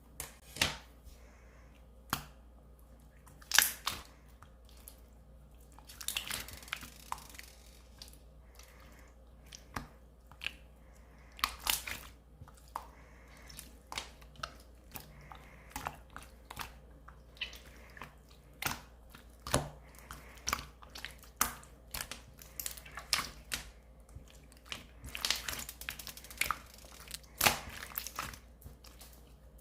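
Clear slime being pressed and squished by hand, giving irregular sticky pops and clicks, with longer crackling stretches about six seconds in and again near the end.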